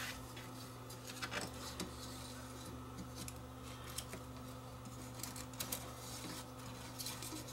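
Faint clicks and rubbing as tape reels are fitted and latched onto the spindles of an Akai reel-to-reel tape deck, over a steady low hum.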